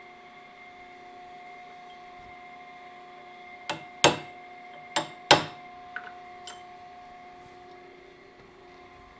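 Hammer blows on a tool held against a steel camshaft to straighten the bent shaft: four sharp metallic strikes in two quick pairs starting a little under four seconds in, then two lighter taps, over a steady hum.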